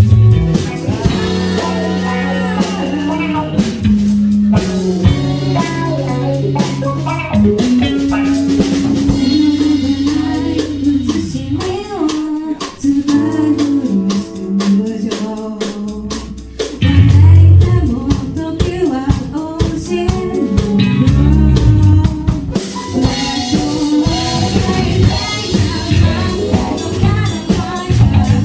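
A live rock band playing: a woman sings into a handheld microphone over electric guitar, electric bass and a drum kit.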